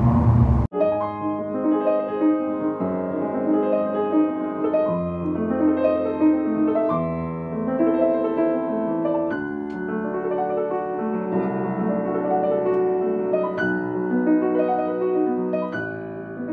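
Light aircraft engine rumble that cuts off abruptly under a second in, followed by background piano music with a gentle melody of struck notes.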